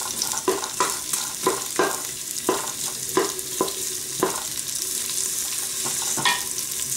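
Sliced onion and garlic sizzling in olive oil in a Moulinex Cookeo multicooker bowl on its browning setting. Stirring strokes come about two a second for the first four seconds, then only now and then.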